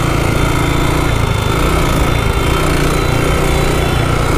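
Motorcycle engine running steadily while riding along the highway, with wind rushing over the microphone.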